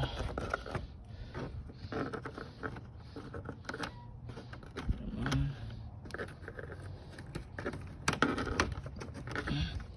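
Plastic engine-bay cover panels and push-in clips being handled and fitted: irregular rattling and clicking, with a couple of sharp snaps as clips go in.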